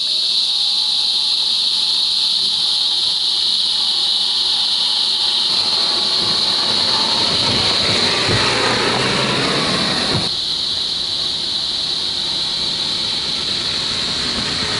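A steady, high-pitched hiss throughout. For a few seconds in the middle, a 1/10 scale RC rock crawler drives close by on the dirt trail, adding rougher noise that stops abruptly about ten seconds in.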